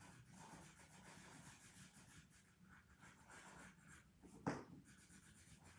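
Near silence with faint scratching of drawing on paper, and one brief soft sound about four and a half seconds in.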